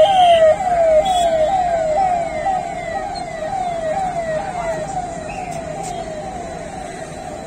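Police jeep siren sounding in quick repeated falling sweeps, about two a second, growing steadily fainter as the vehicle drives off.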